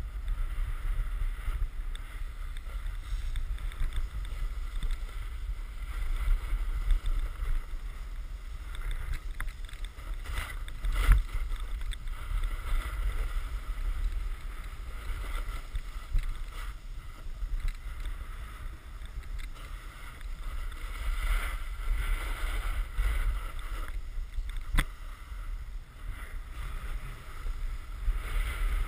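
Wind rumbling over an action camera's microphone during a snowboard run, with the board's edge scraping and hissing over packed snow as it carves. A single sharp knock about eleven seconds in.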